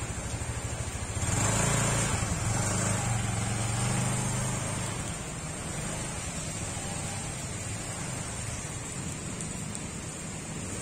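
Motor scooter engine revving up as the loaded scooter pulls away, about a second in, then fading as it rides off, over a steady hiss from the wet street.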